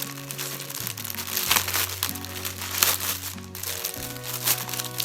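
Plastic packaging crinkling as it is handled, with a few sharp crackles about one and a half, three and four and a half seconds in, over background music with sustained notes and a slow-moving bass line.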